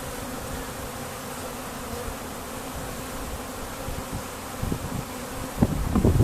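A colony of honeybees humming steadily in an open hive. Near the end, loud low rumbling and knocks come in over the hum.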